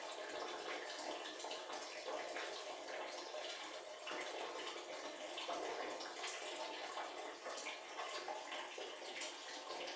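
Water running steadily in a small tiled bathroom: an even splashing with many small spatters.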